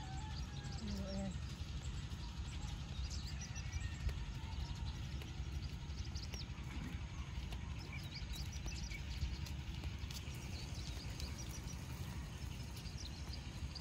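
Wind buffeting the microphone as a steady low rumble, with scattered short high chirps from small birds throughout. A brief faint voice sounds right at the start.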